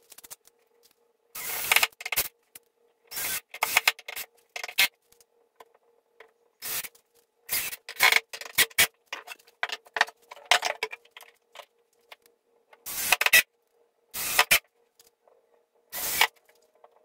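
Yellow DeWalt cordless drill-driver running in about eleven short bursts, each under a second, as it drills pilot holes and drives screws through steel cabinet hinges into a plywood door. A faint steady hum lies underneath.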